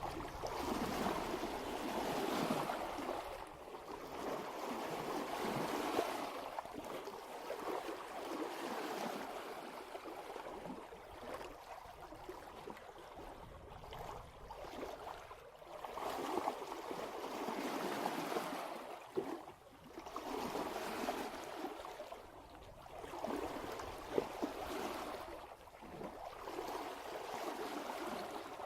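Water washing and gurgling along a sailboat's hull under way in light wind, swelling and easing every few seconds.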